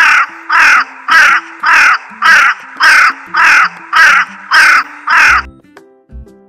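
Raven calling: a run of about ten harsh caws, nearly two a second, stopping a little over five seconds in, with faint music underneath.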